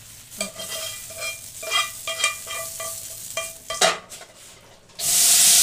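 Hot oil tadka with fried onions and dried red chillies sizzling quietly in thick haleem as a spoon stirs it in, with small scrapes. About five seconds in, a loud steady hiss starts.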